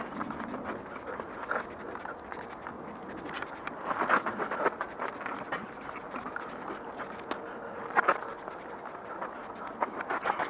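Footsteps shuffling on loose gravel and short squirts from a trigger spray bottle of cleaner: irregular crunches and scrapes, with a few sharper clicks.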